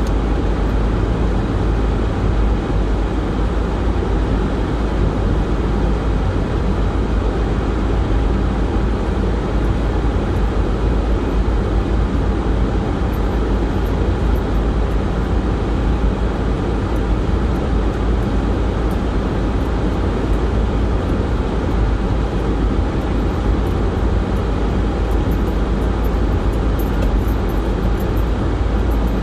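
Steady road and engine noise heard inside a car's cabin while driving on a snow-covered road, a constant deep rumble with a hiss over it.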